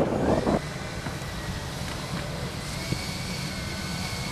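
A radio-control model jet's twin engines give a steady high whine at idle over a background hiss. A louder rushing noise cuts off about half a second in.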